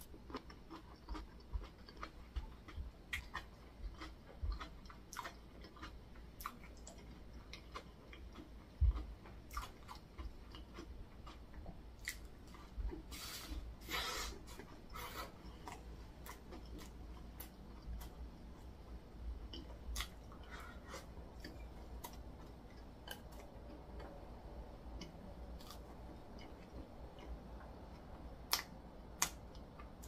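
Close-miked eating: a person chewing food, with many small mouth and utensil clicks scattered throughout and a short, louder, noisier patch about halfway through.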